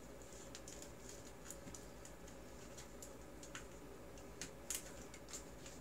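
Faint, scattered light ticks and clicks of hands handling a bundle of thin wires on paper, over a steady low hum.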